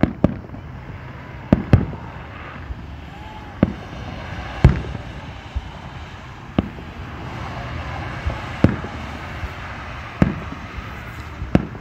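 Aerial firework shells bursting in a series of about nine sharp booms at uneven intervals.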